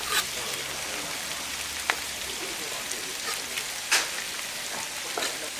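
Large kitchen knife chopping boiled pork offal on a thick wooden cutting board: four sharp knocks of the blade against the board, spaced a second or two apart, the third the loudest, over a steady hiss.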